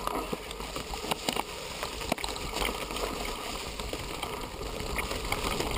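Mountain bike rolling fast down a dirt forest trail: steady tyre and wind noise rumbling on the microphone, with frequent clicks and rattles as the bike goes over bumps and roots.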